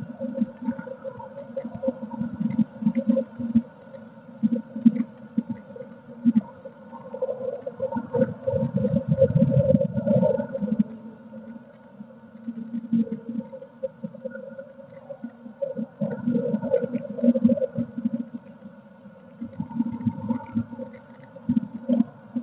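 Blue tit shifting and settling on the wooden floor of a nest box, heard as irregular rustles, scratches and soft bumps close to the box microphone. A faint steady electrical hum runs underneath.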